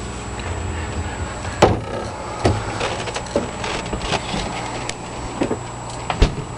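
Objects being handled: about six sharp knocks and clicks at irregular intervals over a steady electrical hum.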